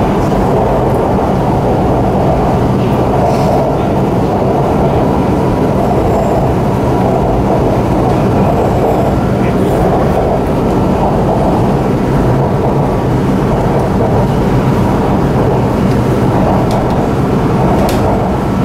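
A Shanghai Metro Line 9 train running at speed, heard from inside the car: a steady, loud rumble of wheels on rail and traction motors with a faint, even whine.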